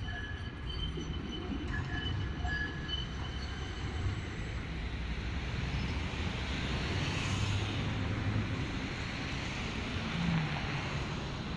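Tram approaching on street track: a steady rumble of wheels on rails that swells as it comes closer, with short faint wheel squeals in the first few seconds as it rounds a curve.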